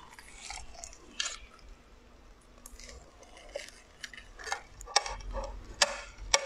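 A soft silicone cake mold being worked and peeled off a moist dessert, with scattered soft squishes and rubbery handling noises. A few sharper clicks come in the second half as the dessert is set down on a plate.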